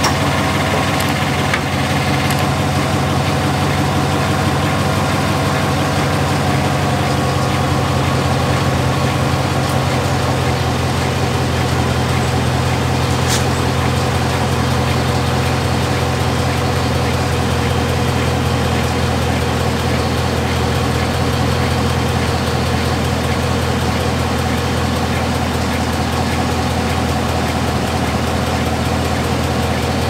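2017 Chevrolet Silverado's 5.3-litre V8 idling steadily, with a newly replaced brake vacuum pump, the part found to cause its loud ticking.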